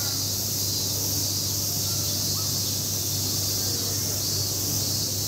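Steady high-pitched drone of insects, with a constant low hum beneath it.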